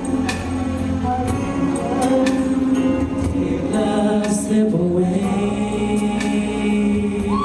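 Mixed-voice show choir singing sustained, layered harmonies through handheld microphones, over a steady beat of sharp percussive hits about once a second.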